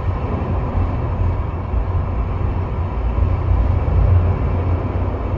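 Stoosbahn funicular car travelling on its track through a tunnel, heard from inside the car: a steady low rumble with a faint steady whine above it.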